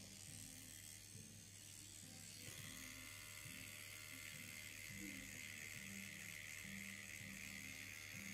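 Faint whir of an electric microneedling pen (derma pen) running as it works over the skin, its high motor whine setting in about two and a half seconds in over a low steady hum.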